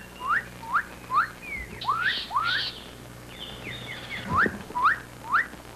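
Assobia-cachorro ('dog-whistler') birds calling: a quick series of sharp, rising whistles, about two a second, like a person whistling for a dog, which is where the bird gets its name. A few harsher, scratchy notes are mixed in around the middle.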